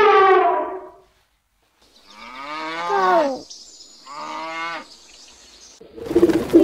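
A cow mooing twice: a longer moo about two seconds in and a shorter one about a second later. A loud call from another animal fades out about a second in, and pigeons start cooing near the end.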